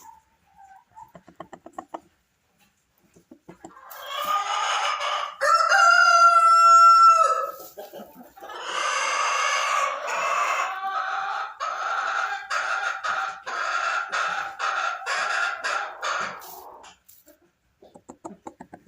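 Silkie rooster crowing, with one loud drawn-out note in the middle. This is followed by a long run of rhythmic clucks, about two a second, that stops near the end.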